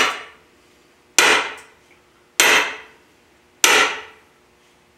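Four evenly spaced hammer blows, about one every 1.2 seconds, driving a bearing into the bore of a CAT D4D diesel engine block; each strike rings briefly and dies away.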